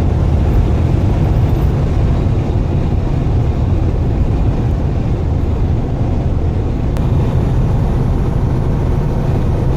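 Steady low rumble of a semi-truck driving on the highway: engine and road noise.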